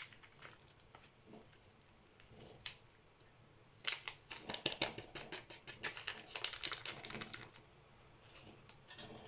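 Paper sachet of baking powder (Dr. Oetker Backin) torn open, then shaken and tapped out over a bowl of kefir: faint, quick crackling and papery taps, thickest from about four seconds in for some four seconds.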